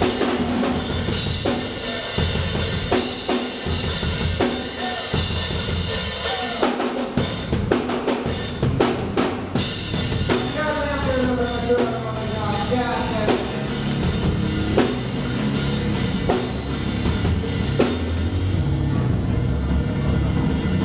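Live drum kit playing, with kick drum, snare and rimshots hit throughout. About ten seconds in, a short falling run of notes is played over the drums.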